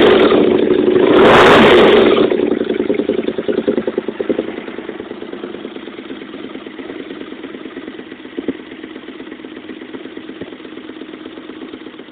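Honda VF500 bobber's V4 engine breathing through homemade exhaust resonators: revved near the start and again about a second and a half in, then settling back to idle within a couple of seconds. A single sharp crack stands out at about eight and a half seconds.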